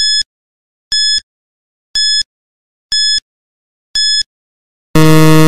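Quiz countdown timer sound effect: five short, high-pitched electronic beeps, one a second, then near the end a louder, longer and lower buzzer tone as the time runs out.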